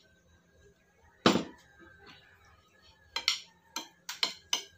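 Metal spoons and forks clinking against ceramic dinner plates while eating: one sharp clink about a second in, then a quick run of six or seven clinks near the end.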